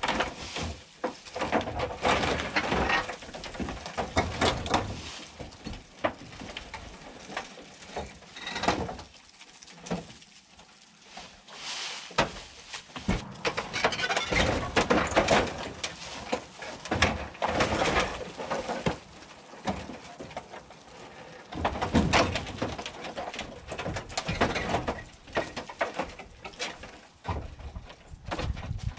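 Rusty corrugated tin roofing and old porch timbers creaking, scraping and knocking irregularly as a fallen-in porch roof is pushed and pried loose by hand, with a few quieter pauses.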